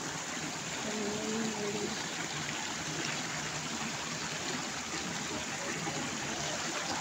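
Shallow mountain stream running over rocks and between boulders: a steady rush of flowing water.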